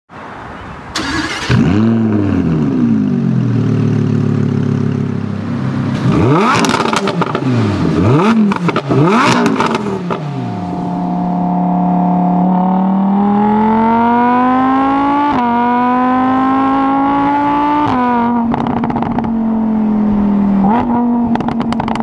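Lamborghini Huracán's 5.2-litre V10 revved in several quick blips that rise and fall in pitch. It then accelerates, the pitch climbing and dropping back twice at upshifts of the dual-clutch gearbox before settling into a steady drone.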